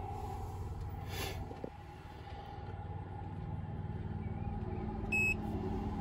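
A tractor engine idling with a steady low rumble and a steady whine over it. A single short electronic beep comes about five seconds in, from the Case IH FM-750 guidance display as it reboots after a firmware upgrade.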